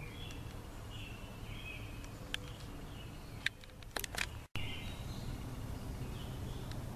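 Birds chirping over a steady low outdoor rumble, with a few sharp clicks a little past halfway and a sudden split-second drop to silence just after them, where the recording is cut.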